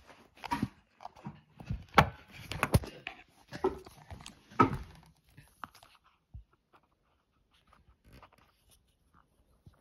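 Handling noise: irregular knocks, bumps and rustles as the camera and small objects are moved about on a wooden tabletop, dying away to a few faint ticks after about six seconds.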